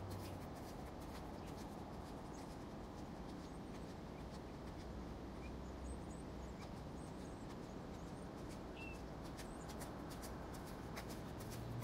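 Faint outdoor ambience: a steady low hiss with scattered light ticks and one short chirp about nine seconds in.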